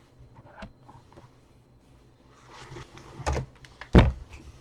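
Handling noises: a few faint clicks, then rustling and two sharp knocks about three and four seconds in, the second the louder.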